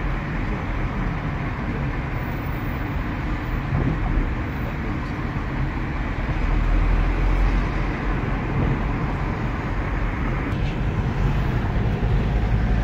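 Steady road noise inside a moving car: engine and tyre rumble, strongest at the low end, with no change in pace.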